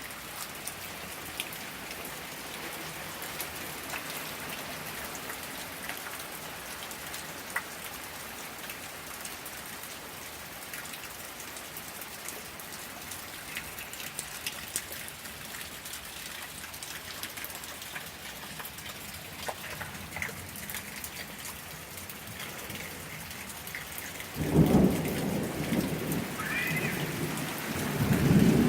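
Steady rain on surfaces with scattered drop ticks. About 24 seconds in a loud rumble of thunder starts suddenly and swells again near the end.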